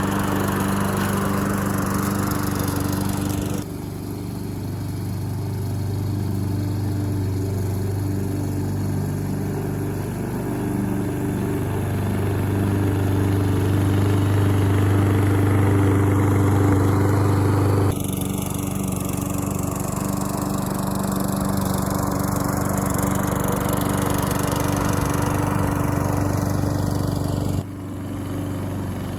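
Push lawn mower running steadily while it mows the yard. Its sound changes abruptly about 4, 18 and 28 seconds in.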